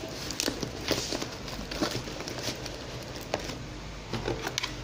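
Rustling of a plastic mailer bag and a cardboard parcel being handled, with scattered crinkles and light taps.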